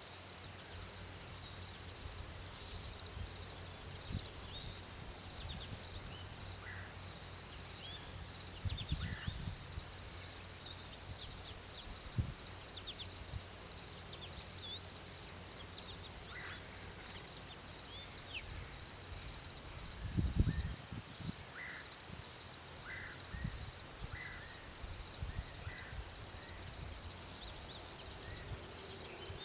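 Outdoor nature ambience: a steady, high-pitched insect chorus with a fast pulse, with scattered short bird calls and occasional low rumbles, the loudest about twenty seconds in.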